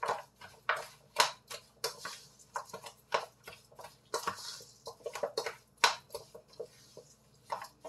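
A hand squishing and mixing a wet coconut-cake mixture of grated coconut and flour in a stainless steel bowl: irregular wet squelches with knocks and clatter against the metal bowl.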